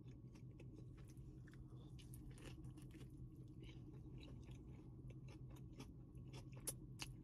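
Faint chewing of a mouthful of sub sandwich: soft, irregular mouth clicks, with two slightly sharper ones near the end, over a steady low hum.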